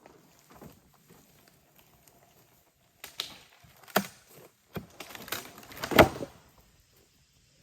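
Scattered light knocks and clicks of handling, with two sharper knocks about four and six seconds in; the chainsaw mill is not running.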